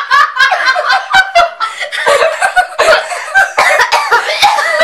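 People laughing loudly in a fast, broken run of ha-ha-ha pulses.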